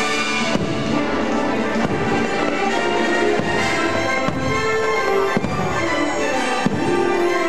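Orchestral fireworks-show music playing, with aerial fireworks shells bursting overhead in several separate bangs spread through it.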